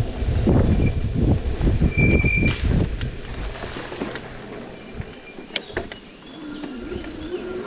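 Wind buffeting the microphone of a moving e-bike, a gusty low rumble that drops away about three seconds in, leaving a quieter rustle with a few clicks and short high tones.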